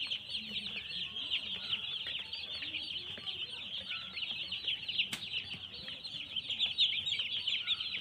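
A flock of hundreds of broiler chicks peeping all at once, a dense continuous chorus of high, short peeps. A single sharp click sounds about five seconds in.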